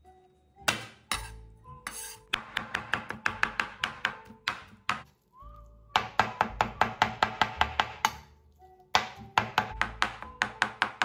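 Chinese cleaver chopping raw peeled prawns into a paste on a cutting board, in quick runs of about five strokes a second broken by short pauses. Soft background music plays underneath.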